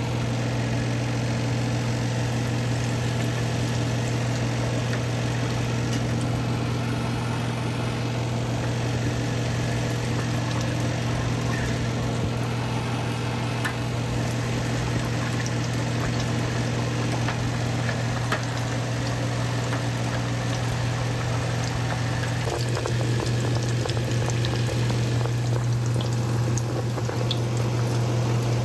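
Breaded chicken deep-frying in 370 °F peanut oil in a carbon steel wok: a steady bubbling sizzle with scattered crackles. Under it runs a constant low hum.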